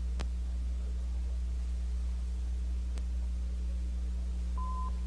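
Steady low electrical hum on an old audio tape, with two faint clicks about three seconds apart and a short steady beep near the end, the cue tone that signals the next slide in a slide-tape programme.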